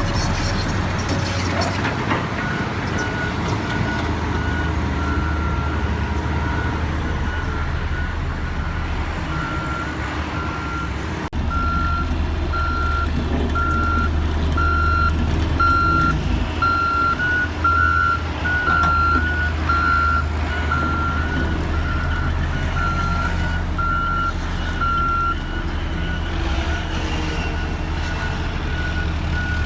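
Reversing alarm of a heavy construction vehicle beeping about once a second over the steady drone of its diesel engine.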